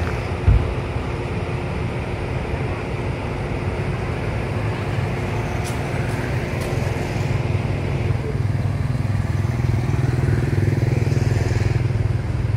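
Motor vehicle engine running steadily close by, a low rumble that grows louder over the last few seconds, with a single low thump about half a second in.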